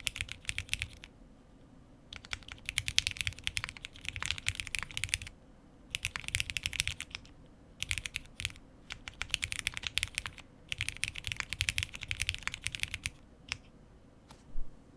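Custom Space65 R3 mechanical keyboard with lubed Cherry MX Black linear switches on a POM plate, under GMK keycaps, typed on in fast bursts with short pauses between them. It ends with a few single keystrokes, the last one louder.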